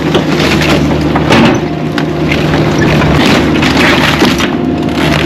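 Caterpillar 305E2 mini excavator's diesel engine running steadily while the machine breaks up demolition debris, with repeated cracks, knocks and crunches over the engine.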